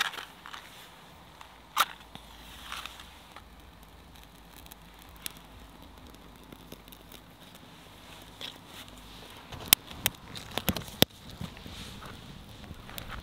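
A match struck on its box and flaring, then a quiet stretch followed by a cluster of sharp crackles and clicks near the end as the campfire kindling is lit and laid.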